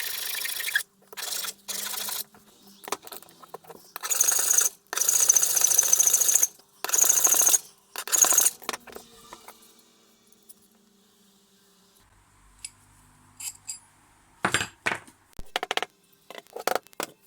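Metal hand file pushed across a rusty steel wrench in about six long strokes, filing out deep corrosion pits. After a pause, a few sharp knocks and clicks near the end.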